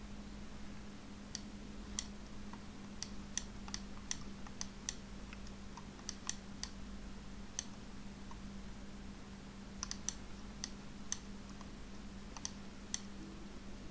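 Irregular sharp clicks from a computer's mouse and keyboard while a map is being navigated on screen, over a steady low hum.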